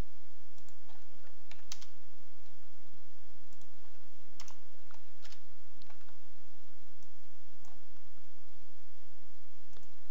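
Scattered single clicks of a computer mouse and keyboard, irregularly spaced, over a low steady hum.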